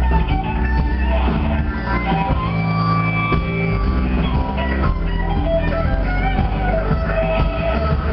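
Live rock band playing: a Telecaster-style electric guitar leads with sustained, bending notes over bass guitar and drums.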